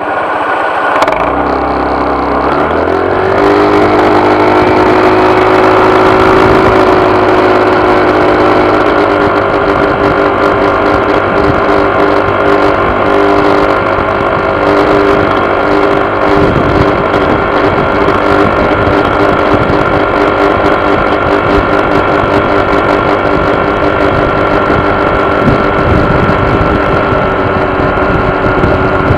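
Honda PCX scooter's single-cylinder engine and drive picking up speed over the first few seconds, then running steady with a persistent buzz. The buzz is the sign of a vibration problem, which the owner connects with the variator.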